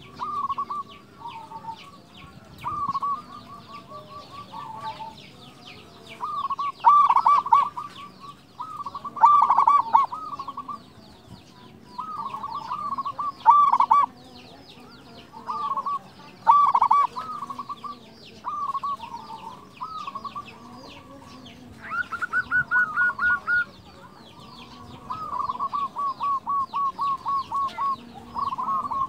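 Zebra dove (perkutut) cooing: short phrases of rapid, rolling staccato notes, repeated every second or two, with faint high chirping of other small birds behind.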